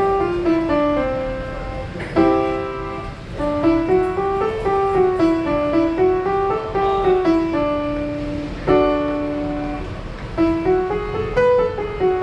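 Public piano being played: a continuous melody of stepped notes over chords, with a few chords struck harder.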